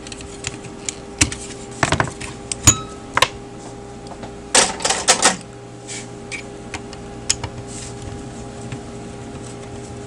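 Hands handling small plastic and metal parts and a screwdriver on a workbench: scattered clicks and knocks, with a short burst of clatter about halfway through. A steady low hum runs underneath.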